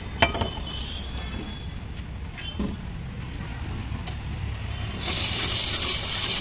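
Low street traffic rumble with a sharp knock just after the start and a lighter one a little later; about five seconds in, a loud hissing scrape starts as a block of ice is shaved on an ice-shaving machine.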